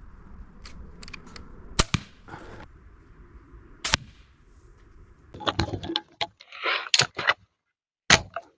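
EK Archery Cobra Siege 300 repeating crossbow being shot repeatedly. There are sharp snaps, with a quick run of clacks in the second half.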